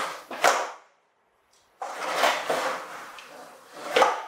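Plastic toy dump truck scraping and clattering against a wooden floor as it is handled. A short burst comes first, then a pause, then a longer scrape ending in a sharp knock near the end.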